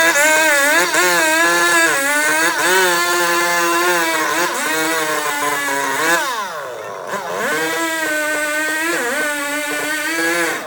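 Two-stroke chainsaw running at high revs, its pitch wavering as it bogs and picks up under the load of cutting. About six seconds in the revs fall away, then climb back up.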